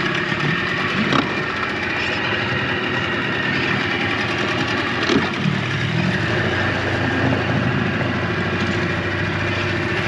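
Small outboard motor on an inflatable dinghy, running steadily under way.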